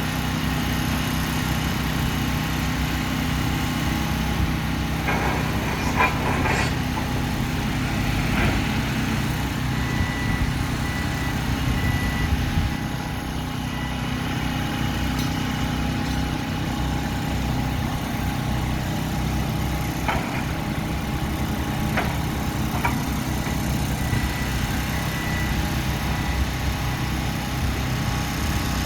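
Diesel engine of heavy earthmoving machinery running steadily, with a few sharp metallic clanks and knocks scattered through.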